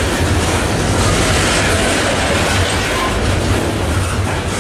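Loaded Norfolk Southern coal train's steel hopper cars rolling past at close range: a loud, steady rumble of wheels on the rails.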